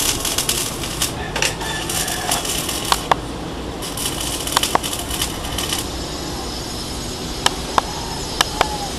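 Arc welding on a steel angle-bar roof truss: the arc sizzles and crackles in three stretches during the first six seconds. Sharp metallic taps come singly and in pairs between the stretches and through the last few seconds.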